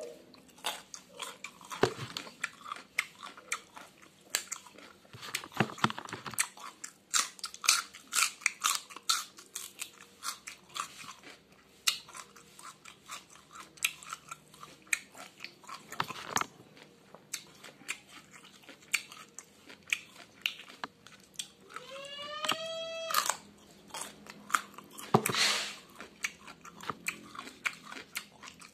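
Close-up crunching and chewing of raw papaya stalks and leaves, with many crisp irregular bites. About three quarters of the way through comes one short rising hum-like vocal tone.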